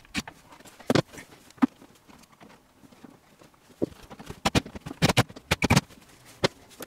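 Sharp clicks and knocks of hand work as an in-line fuse holder is fixed to a caravan wall panel with a cordless driver, bunched into a quick run of knocks a little past the middle.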